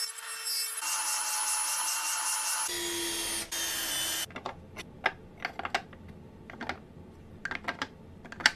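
Power-tool motors whine for the first four seconds, first a table saw and then a cordless drill driving a screw. After that come a dozen or so separate sharp clicks and knocks as steel chisels are set into a wooden wall-mounted holder, the loudest near the end.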